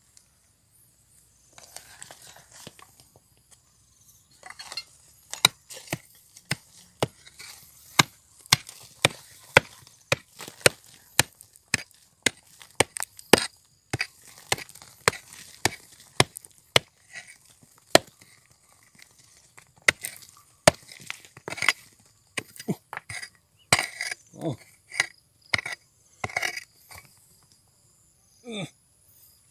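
Small hand pick chopping and scraping into dark, stony soil: repeated sharp strikes, about two a second, with loosened earth and stones crumbling away between them.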